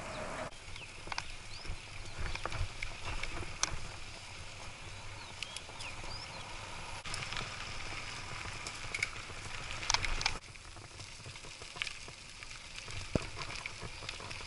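Bicycle being ridden over rough dirt and patched road: steady tyre and wind noise with irregular clicks and rattles from the bike over bumps.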